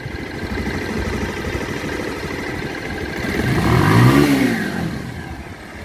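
Bajaj Pulsar's single-cylinder four-stroke engine idling, then revved once about three seconds in, its pitch rising and falling back to idle. Freshly rebuilt with new piston rings, it runs smoothly, a sound the mechanic calls perfect, though the tappets are not yet adjusted.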